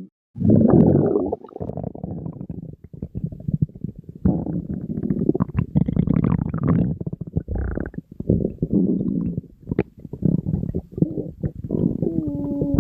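Human stomach growling: an irregular run of low rumbles and bubbling gurgles, broken by a short silent gap just after the start. Near the end a drawn-out gurgle with a wavering pitch.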